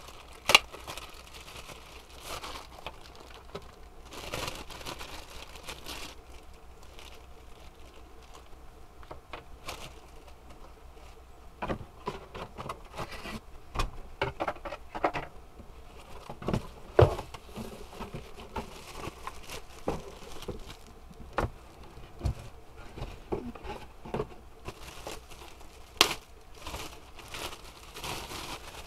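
Plastic packaging bags crinkling and rustling as items are unwrapped and lifted from a cardboard box, with scattered knocks and taps of handling.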